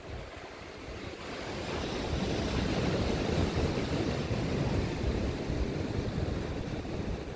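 Wind gusting over the microphone with ocean surf beneath, swelling over the first two seconds, then holding steady.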